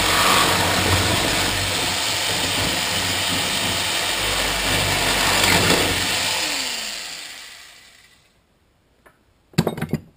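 Corded jigsaw cutting through steel screen-door mesh, a loud rattling buzz. About six seconds in the saw is switched off and its motor winds down with a falling whine. A short clatter comes near the end.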